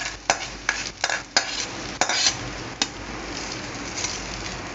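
Metal spoon scraping and knocking against a small metal pan, a run of sharp clicks, as hot coconut-oil tempering with mustard seeds, onion and curry leaves is tipped into a pot of aviyal. After about three seconds a steady sizzle takes over as the hot oil meets the gravy.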